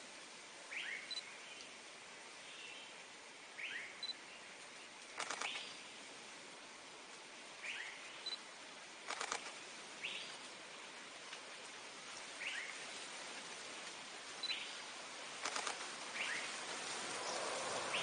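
Forest ambience: a steady hiss of background noise with a small bird repeating a short, high, falling call every two to four seconds. Three brief rattling bursts stand out about five, nine and fifteen seconds in.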